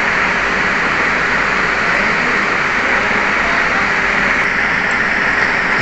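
A steady, even hiss with no separate clinks or knocks in it, like running air or a fan.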